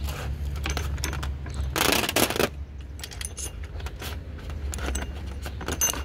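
Chainsaw chain links clinking and rattling as the slackened chain is rolled off its guide bar by hand, with a denser, louder rattle about two seconds in.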